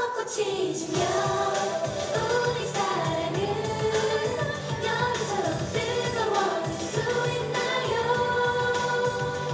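Young women singing a K-pop song live into handheld microphones, sustained sung notes gliding between pitches, over instrumental accompaniment.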